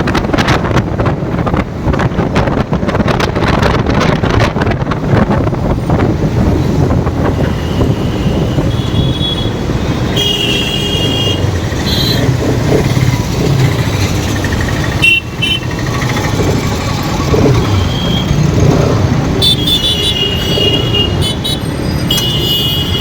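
Bajaj Pulsar RS 200 single-cylinder motorcycle riding through traffic, with engine and road noise and heavy wind buffeting on the microphone for the first several seconds. From about ten seconds in, vehicle horns toot briefly several times.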